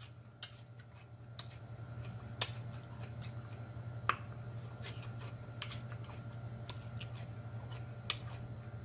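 Close-up mouth sounds of someone eating sauced chicken wings: scattered wet lip smacks and chewing clicks, a few sharper ones, over a steady low hum.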